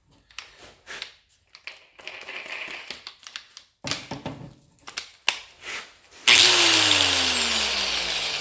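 Handling clicks as a stripping pad is screwed onto an angle grinder. Then the grinder is blipped on about six seconds in and spins down with a steadily falling whine: a test spin of the newly fitted pad.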